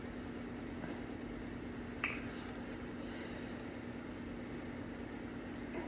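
Steady background hum with one sharp click about two seconds in.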